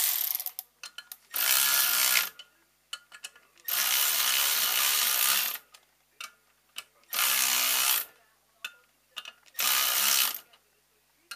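A handheld power tool run in four bursts of one to two seconds each, with short pauses and small clicks between them.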